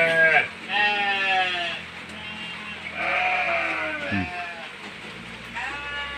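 A pen of hungry goats bleating loudly for feed, several long wavering calls one after another from different animals.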